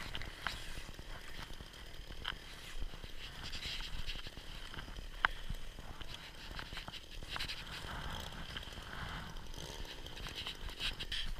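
Fabric of a pop-up ice-fishing shelter rustling and scraping as it is handled, with a few sharp clicks.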